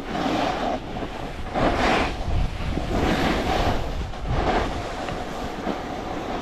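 Skis sliding and scraping over packed snow, the hiss swelling four times as the skier turns, over a steady low rumble.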